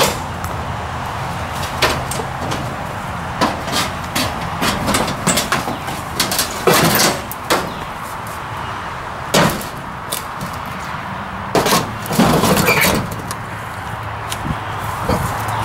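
Corrugated sheet-metal shed panels being pulled and pried at by hand: a run of knocks and metallic rattles, with longer scraping, grating bursts about 7 s in, around 9.5 s, and again near the end.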